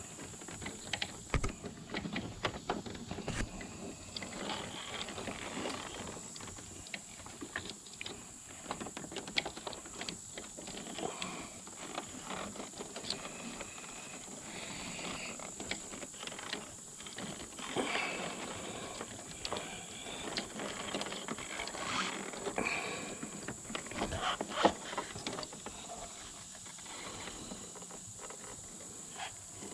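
Handling noise from fishing speaker wire with a bent wire hanger: irregular scraping, rustling and scattered clicks as the hanger and wire are pushed and worked through a tight passage.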